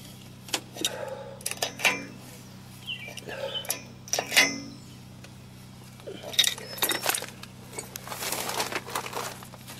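Adjustable steel wrench clinking and clicking against the nut and the steel head of a helical earth anchor as the nut is tightened, in short separate metallic clinks at irregular intervals, followed by a rustling near the end.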